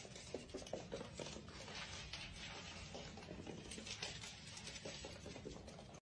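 Faint, irregular patter and scratching of a small pet's paws and claws on a hardwood floor, with light rustling of a sock in its mouth.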